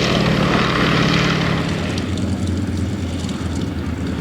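Yakovlev Yak-50/Yak-52 aerobatic plane's nine-cylinder M-14P radial engine and propeller running loudly. About halfway through, its pitch and loudness drop.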